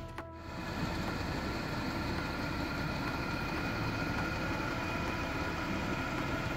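Portable diesel air heater running: a steady hum with a fan's whine over it.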